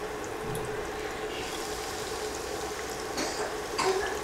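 Bread-crumb-coated vegetable cutlets deep-frying in hot oil, a steady bubbling sizzle. There are two short, louder bursts near the end as another cutlet goes in.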